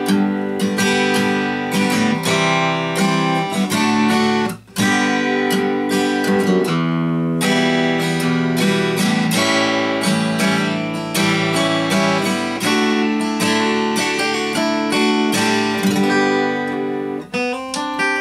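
Taylor 810 spruce-top, rosewood dreadnought acoustic guitar being played in chords, strummed and picked, with a short break about four and a half seconds in.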